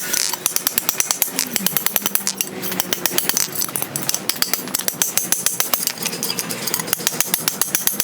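Hand hammer striking hot steel on an anvil in quick, light, rhythmic blows, several a second, tightening a hinge barrel rolled around a drift.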